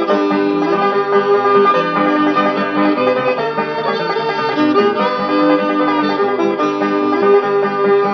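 Instrumental break of a 1930s old-time string band, without singing: fiddle playing held notes over picked banjo and strummed guitars. It plays from a 78 rpm record, with a dull top end.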